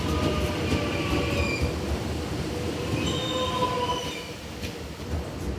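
Suburban electric train moving along the platform, its wheels squealing in thin high tones over a low rolling rumble; the squeal comes up about a second in and again a few seconds later.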